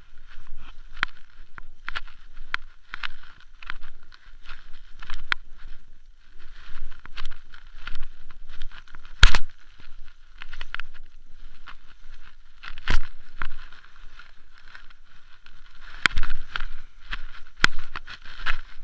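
Mountain bike rolling over a rough trail, heard through a camera mounted on the bike: the bike and mount rattle with irregular sharp knocks from bumps, the loudest about nine seconds in and again near the end.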